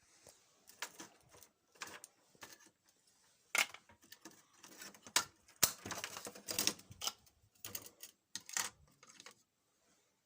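A run of irregular clicks and small knocks, like a small hard object being handled. It is densest in the middle and stops about a second before the end.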